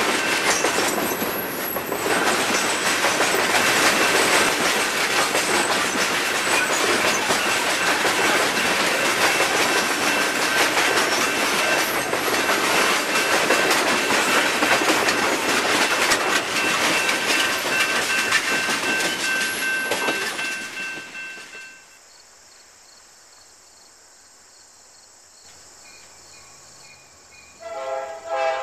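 Loaded coal hopper cars rolling past with a steady clickety-clack of wheels on rail. The sound cuts off sharply about three quarters of the way through, leaving a quiet background. Near the end a diesel locomotive's horn starts sounding.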